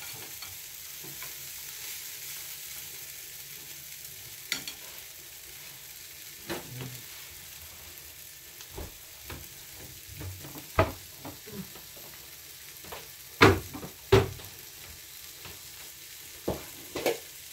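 Vegetables sizzling as they stir-fry in olive oil in a frying pan, with a cooking utensil knocking against the pan now and then, loudest twice in quick succession about three-quarters of the way through.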